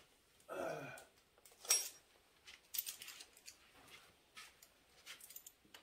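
Scattered light metallic clinks and taps of hand tools and engine parts being handled during an engine teardown, with one sharper clink about two seconds in.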